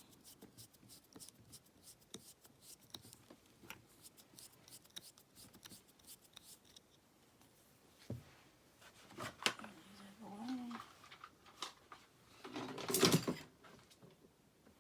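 Rapid light metallic clicking of a screwdriver working at the tight screws on the back of a lock cylinder, then a knock about eight seconds in, some scraping, and a loud clatter about thirteen seconds in.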